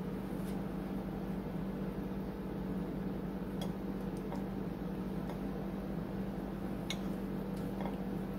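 Steady low hum in the room, with a few faint clicks of a metal fork against a ceramic plate as it cuts through the soft, soaked cinnamon roll bake.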